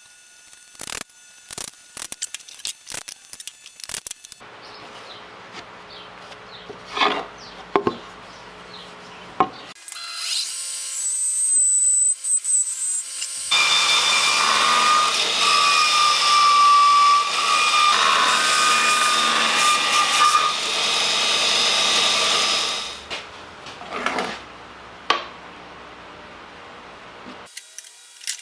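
Power tool working wood: a few quick clicks, then the motor running. Then a long, loud cut into the wood, and the motor running on lightly before it stops near the end.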